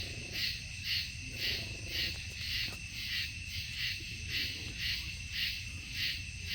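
Night insects chirping in a steady chorus, pulsing about twice a second, over a low background rumble.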